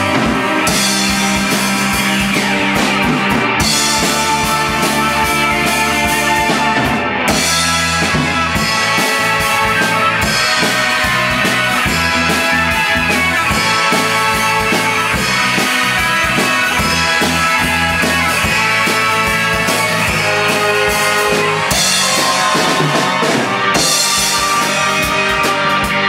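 Rock band playing live: electric guitar and electric bass over a drum kit with cymbals, an instrumental passage with no singing.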